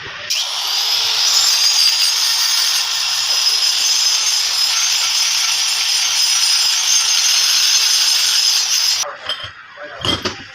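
Power tool working metal during a turbocharger repair: it spins up with a faint rising whine just after the start, runs steadily and loudly with a high whine, and cuts off about nine seconds in.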